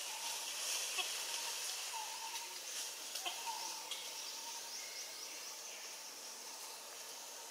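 Forest background: a steady high hiss with short, faint chirping calls and a few sharp clicks in the first four seconds.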